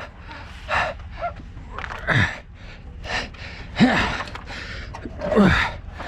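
A person's short gasping breaths and grunts, about four of them, some voiced with a falling pitch, over a steady low rumble.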